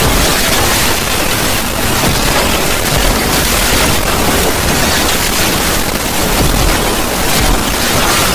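Heavily distorted 'void scream' sound effect: loud, harsh noise like heavy static over a deep rumble, steady with slight pulsing and no clear pitch.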